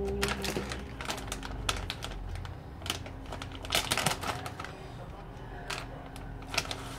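Crinkling and crackling of a plastic snack bag of raw pumpkin seeds being handled, opened and reached into: a string of sharp irregular crackles, thickest about four seconds in.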